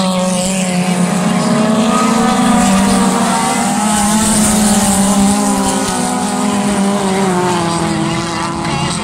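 A pack of 2.1 Modified race cars running flat out around a dirt oval, several engines overlapping, their notes rising and falling as the cars pass.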